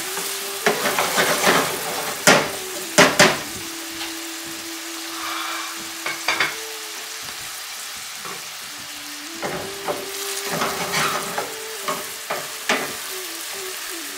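Finely chopped onions frying in oil in a stainless steel sauté pan on medium heat, sizzling steadily. A wooden spatula stirs them, knocking and scraping against the pan in the first few seconds and again about ten seconds in.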